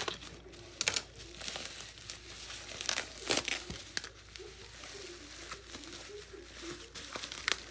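Packaging being crinkled and torn open by hand: irregular sharp crackles and rustling.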